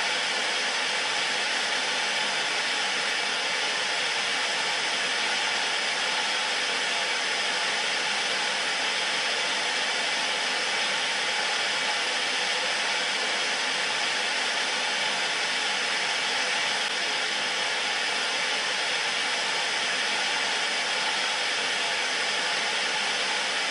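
Electric meat grinder motor running steadily: an even whir and hiss that does not change.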